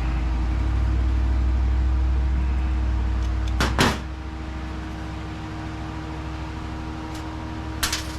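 Low engine rumble from a vehicle close by, which drops away suddenly about four seconds in with a couple of sharp clanks. A steady hum continues, and two more clicks come near the end.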